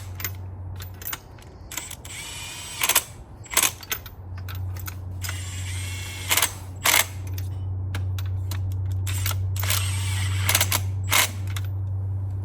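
Irregular sharp metallic clicks and clanks of hand tools, the loudest a few seconds in and again around the middle, over a steady low hum.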